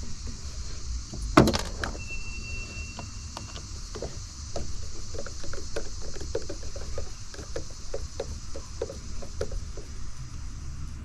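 Hand disassembly of an espresso machine: a sharp knock, then a run of light clicks and taps, about two or three a second, as parts and screws are worked loose with hand tools.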